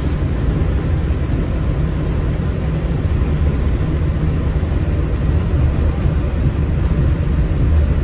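Walt Disney World monorail running, heard from inside the car: a steady low rumble.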